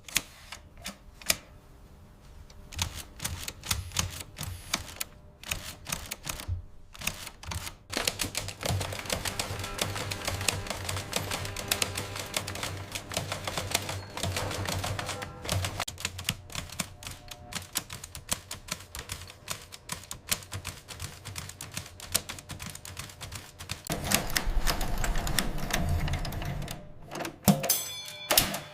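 Restored manual typewriter being typed on: rapid clacking key strikes, sparse at first and then coming thick and fast from about eight seconds in, showing the machine working again. Background music plays under it.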